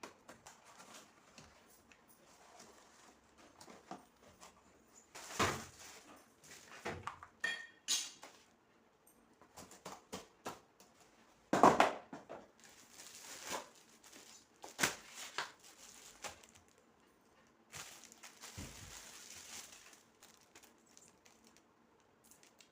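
Irregular light taps, clicks and knocks of small objects being handled, with a short stretch of rustling near the end.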